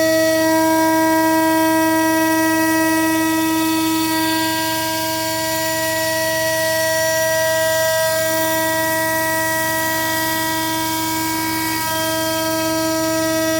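CNC router spindle milling an EN AW 5083 aluminium plate: a steady, loud pitched whine with several overtones. The tones shift slightly about eight seconds in and again near twelve seconds.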